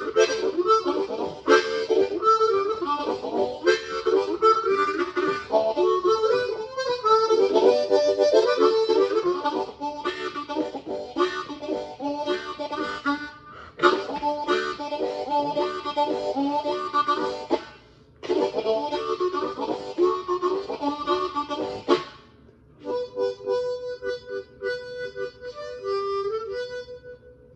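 Harmonica playing, full chords and rapid rhythmic breathed notes, with two brief breaks near the end before it settles into a thinner, steadier held note.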